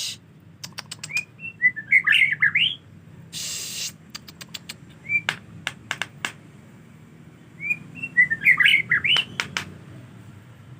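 A murai (white-rumped shama) singing two short bursts of quick rising and falling whistled notes, about a second in and again near the end. Between them come sharp clicks and a short hiss about three seconds in.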